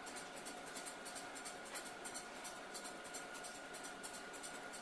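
Kitchen knife slicing through a stack of filo pastry sheets on a cutting board: rhythmic scratchy strokes, about three a second, over a faint steady hum.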